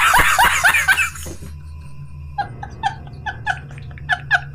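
A man laughing hard: loud, rapid "ha-ha-ha" laughter that trails off about a second in, then, after a short pause, a quieter run of short high-pitched laughs, three or four a second.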